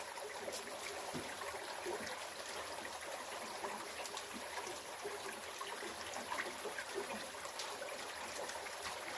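A small rocky river flowing steadily, a constant trickling, running-water noise.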